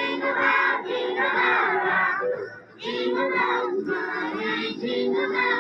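Children singing in phrases with held notes, with a short break about two and a half seconds in.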